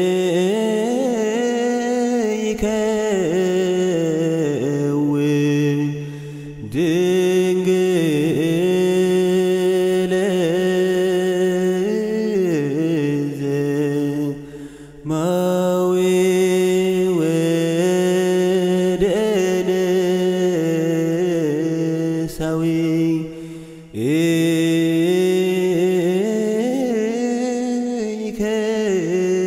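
A slow Eritrean Orthodox Tewahedo liturgical hymn chanted in Ge'ez, one melodic line of long held, ornamented notes that waver and bend in pitch. The chant breaks off briefly three times between phrases.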